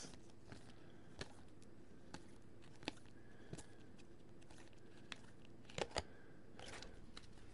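2015 Bowman Chrome baseball cards flipped through by hand: faint scattered clicks of card edge against card, with two louder snaps close together near the end.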